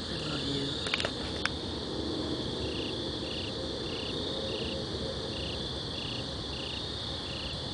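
Crickets chirping at night: a steady high trill, joined a couple of seconds in by evenly repeated chirps about twice a second. A couple of faint clicks about a second in.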